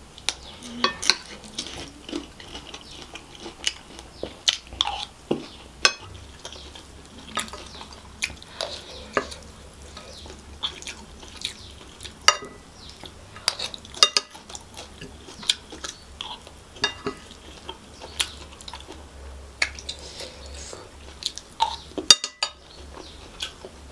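Close-miked eating: a wooden spoon scooping kottu roti and clicking and scraping against a plate, in irregular sharp ticks a few times a second, between bouts of chewing.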